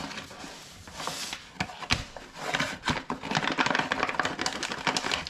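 Paper flour bag crinkling and rustling as a hand reaches in and scoops flour out, a continuous run of small crackles that gets busier in the second half.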